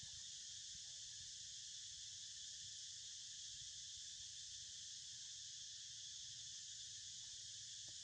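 A faint, steady, high-pitched insect chorus that runs on without a break.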